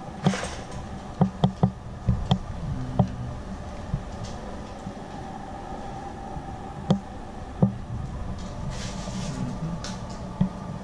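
Folded Midwest iCrate metal wire dog crate clinking and knocking as it is handled: a run of sharp metallic clicks in the first few seconds, then a few scattered ones, over a steady low hum.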